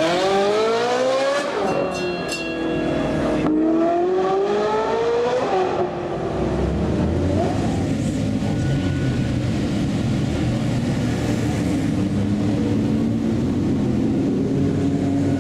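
Ferrari 458 Speciale's naturally aspirated V8 through an Fi aftermarket exhaust, accelerating hard with its note rising twice. Between the two pulls there is a quick rattle of exhaust pops and crackles. A lower, steady engine rumble follows as cars move slowly.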